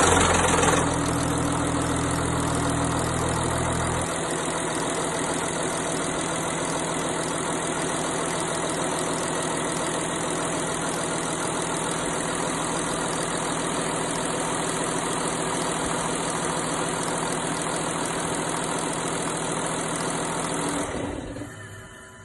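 Audi A6 C7 engine idling just after a cold start, with a rattle the owner suspects is the timing chain. The engine runs louder for the first second, its idle drops about four seconds in, and it fades out near the end.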